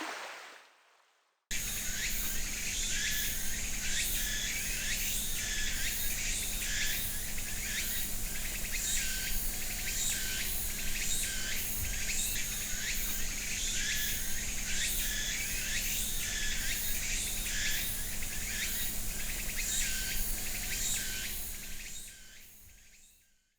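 A natural chorus of insects and birds chirping over and over. It cuts in suddenly about a second and a half in and fades out near the end.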